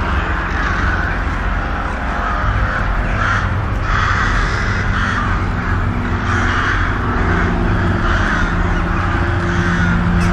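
Repeated short, harsh calls, roughly one a second, over a low steady drone, as in a creepy horror sound effect.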